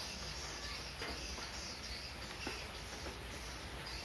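Steady high-pitched chirring of insects in the background, with a few faint clicks from a charger's power cord and plug being handled.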